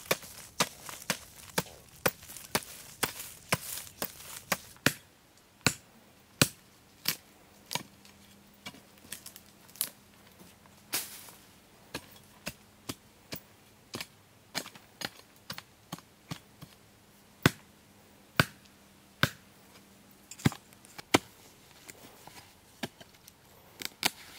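Hoe blade striking dry, root-filled earth again and again, chopping through roots: quick, even strokes at about two a second for the first few seconds, then slower, irregular strikes.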